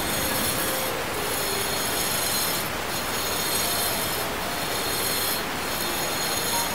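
Handheld angle grinder with an abrasive disc grinding a stone surface: a steady, loud grinding hiss with a high ringing whine. The high part dips briefly a few times, about a second or so apart.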